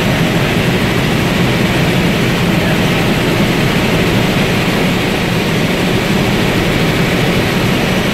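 Tour helicopter in flight, its engine and rotors heard from inside the cabin as a loud, steady noise.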